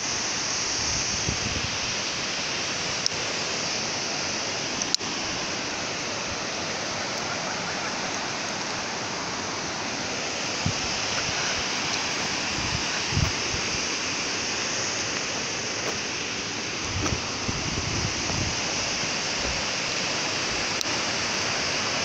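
Waterfall's steady rushing of falling water, with a few soft low bumps along the way.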